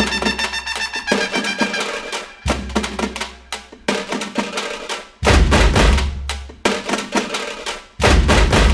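Music with a prominent drum beat: repeated drum strikes, some heavy and deep, over melodic instruments.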